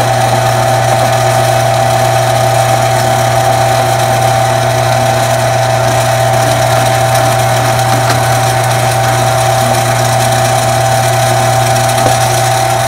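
Smithy 3-in-1 combination lathe running steadily, its chuck spinning a brass flare cap: a constant low hum with a steady whine above it.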